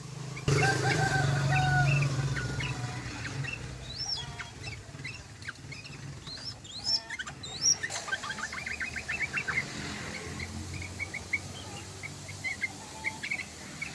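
Yellow-vented bulbuls (trucukan) singing: bubbly runs of short, quick chirps and up-and-down whistled notes, with a fast chattering burst about nine seconds in. A low steady hum lies underneath.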